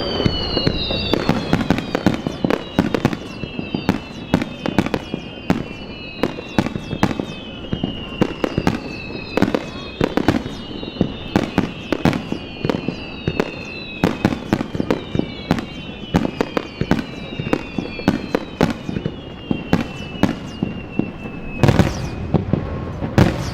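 Aerial fireworks display: a rapid string of shells bursting with sharp bangs and crackle, overlapped by repeated whistles that fall in pitch. Two heavier booms come near the end.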